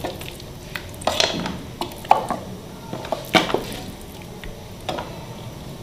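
Wooden spoon scraping cooked chana dal out of a metal pot, knocking against the pot several times.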